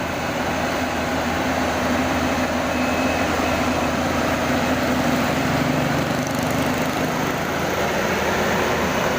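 Yanmar YH850 combine harvester's diesel engine running steadily.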